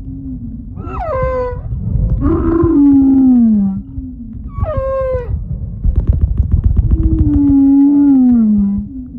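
Humpback whale snoring: long low moans that slide down in pitch, alternating with shorter, higher calls that drop sharply, over a low rumbling crackle.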